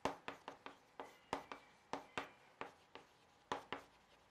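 Chalk writing on a chalkboard: a string of short, sharp taps and strokes at an uneven pace of about three or four a second.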